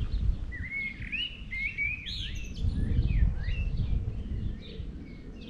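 A songbird singing a quick run of chirping notes, busiest about a second in and fainter after three seconds. Underneath is a loud, uneven low rumble of wind on the microphone.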